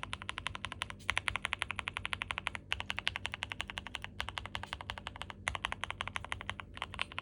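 Fast typing on a Dukharo VN66 gasket-mount mechanical keyboard with a steel plate, PE foam mod, NK Silk Emerald switches and GMK Olivia clone keycaps: quick, even keystrokes in runs of a second or so, broken by brief pauses.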